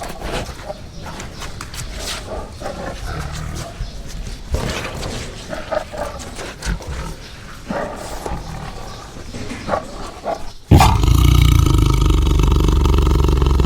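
Tiger growling in rough, uneven bursts, then about ten seconds in a sudden, much louder sustained roar that lasts about three seconds.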